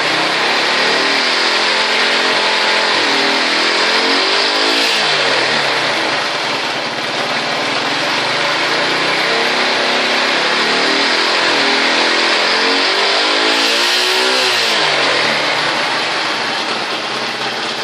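Shineray motorcycle engine, still on its original exhaust, revved up and down repeatedly, its pitch rising and falling several times with the highest revs about five seconds in and again near fourteen seconds.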